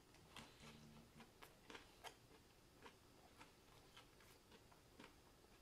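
Near silence: faint room tone with a scatter of tiny, irregular clicks.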